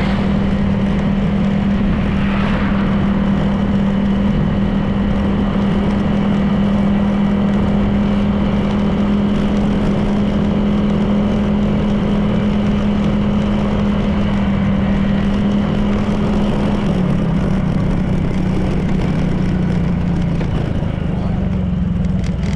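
Honda PCX 160 scooter's single-cylinder engine running at a steady cruise, with road noise. The engine note drops a little about seventeen seconds in as it eases off.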